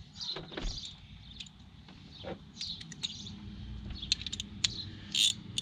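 Small clicks and scrapes of hand work at a truck's alternator, then a quick run of ratchet clicks near the end as the 10 mm nut on the alternator's power wire is loosened.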